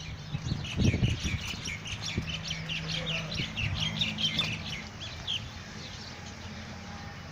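A flock of small birds chirping rapidly and densely, fading out after about five seconds, over a steady low hum. A low thump about a second in.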